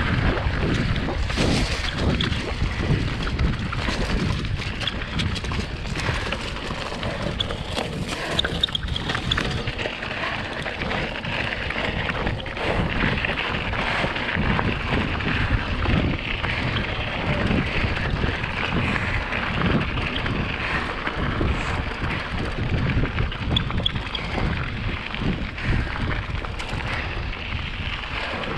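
Wind buffeting a bike-mounted camera's microphone while a mountain bike rolls fast over a gravel dirt road, with a steady rumble from the tyres.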